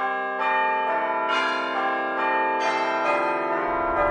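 Bells struck one after another, about a second apart, each strike ringing on into the next. A low rumble comes in near the end.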